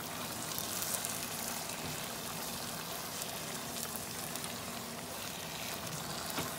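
Thick spinach-and-meat curry sizzling gently in a nonstick pot as it is stirred with a silicone spatula, with faint soft ticks from the stirring.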